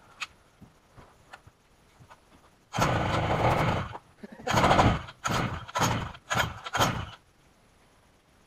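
Stihl MS880 chainsaw on a chainsaw mill being pull-started: one loud harsh burst of just over a second, then five short bursts about half a second apart, after which the engine does not keep running.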